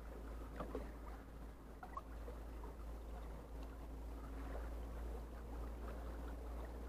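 Faint steady wash of the sea with a low rumble, and a few light clicks.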